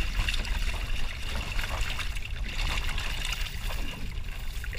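Water trickling and dripping off a wet cast net into the bottom of a boat, with a few small knocks and a steady low rumble underneath.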